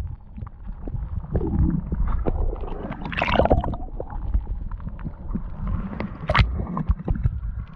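Muffled water sloshing and gurgling heard through a camera held underwater, with a steady low rumble and scattered knocks from the camera being handled. A louder splashy burst comes about three seconds in, as the camera nears the surface, and a sharp knock comes near the end.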